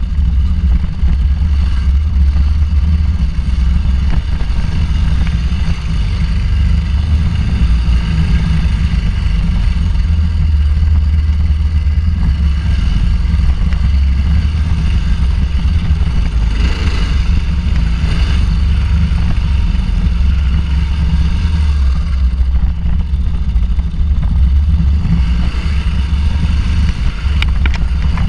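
Suzuki DR800 Big's large single-cylinder four-stroke engine running steadily as the motorcycle rides a dirt track, heard from an onboard camera as a continuous low rumble.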